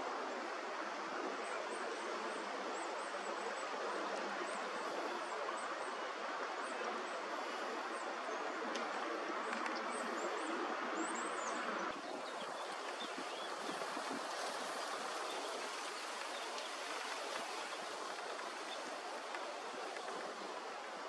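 Steady rushing outdoor background noise, with faint, short, high bird chirps through the first half. The noise changes abruptly about halfway through.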